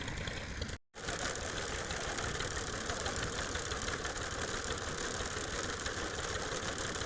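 Two-stroke chainsaw engine running steadily with a fast, even putter. The sound cuts out completely for a moment just under a second in, then carries on unchanged.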